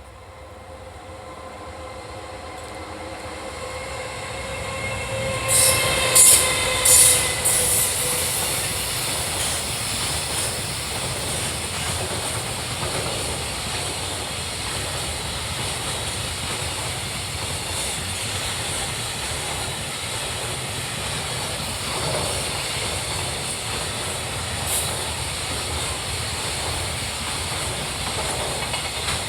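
An EF210 electric locomotive hauling a freight train passes at speed. Its whine grows as it approaches, and there are several loud clacks from the wheels as it goes by about six seconds in. Then comes a long steady rumble and clatter of the freight wagons rolling through.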